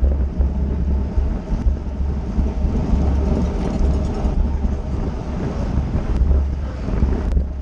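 Wind buffeting the microphone of a camera on a racing bicycle at speed, a heavy, uneven rumble with road and tyre noise underneath.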